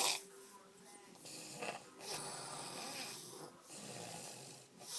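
A man passed out drunk, snoring in slow cycles. A loud snore cuts off just as the sound starts, softer breaths follow, and the next loud snore begins near the end.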